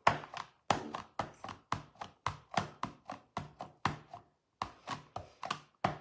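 Clear acrylic stamp block tapped over and over onto a plastic-cased stamp ink pad to ink a clear-mount stamp. The taps come quickly and evenly, about four a second, with a short pause just past four seconds.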